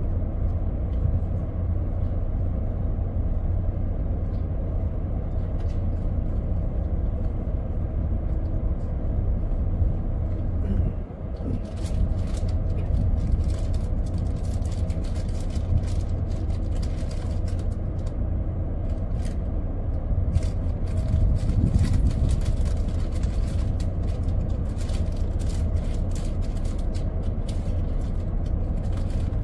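Steady low rumble of the ship's engine running, with crinkling of a plastic snack bag being handled from about 11 seconds in.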